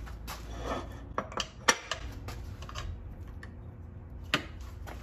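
Metal clinks and knocks as a 2-inch aluminum round bar and a small steel vise are set down and shifted on a bandsaw's metal table. There are several sharp clanks in the first two seconds and one more near the end.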